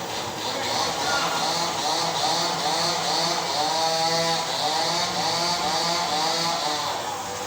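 A small motor-driven power tool running, its pitch wavering up and down over a steady hum.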